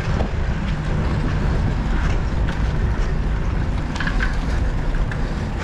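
Wind buffeting a GoPro's microphone while riding a road bike, with a steady low rumble of tyres on asphalt.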